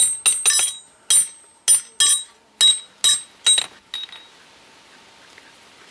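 A farrier's hammer striking a steel horseshoe on an anvil to shape it to the hoof: about ten sharp, ringing metallic blows roughly two a second, stopping about four seconds in.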